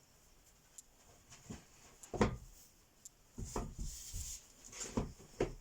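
Broom sweeping a floor: irregular brushing strokes with several knocks and thuds, the loudest about two seconds in.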